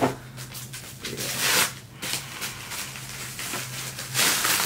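Plastic cling wrap crinkling and rustling in bursts as it is pulled off a shirt, with a sharp click at the very start.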